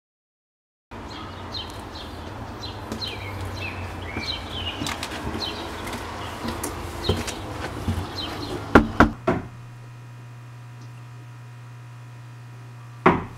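Outdoor ambience with small birds chirping, then three sharp knocks on a front door about nine seconds in. After that a low steady hum, with the knocking starting again just before the end.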